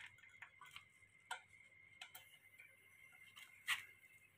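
Faint, scattered clicks and taps of a gas regulator being pushed and latched onto the valve of a 3 kg LPG cylinder, the sharpest click about three and a half seconds in.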